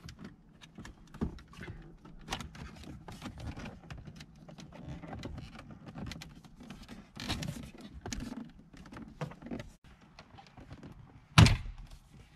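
Plastic dashboard trim on a Nissan Titan being pried and pulled loose by hand: a run of small clicks, scrapes and rattles from the clipped-in panel, with one loud clack about a second before the end.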